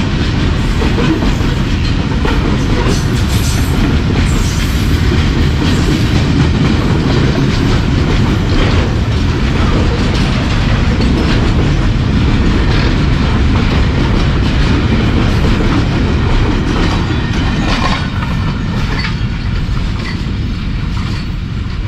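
A freight train's covered box wagons rolling past close by: a steady heavy rumble of steel wheels on the rails with faint clicking, easing a little near the end as the last wagon goes by.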